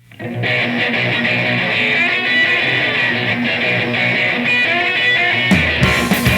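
Opening of a punk-rock song: an electric guitar plays the intro on its own, and about five and a half seconds in the bass and drums come in.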